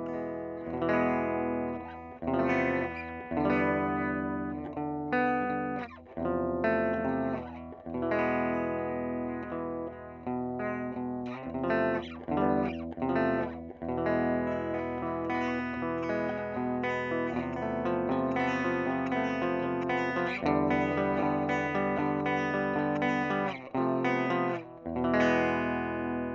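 Electric guitar, an early-1990s Squier Bullet Strat, played through a Fender '57 tweed Princeton single-ended Class-A valve amp with no effects. Chords are strummed and left to ring, with short breaks between phrases, and the last chord fades out near the end.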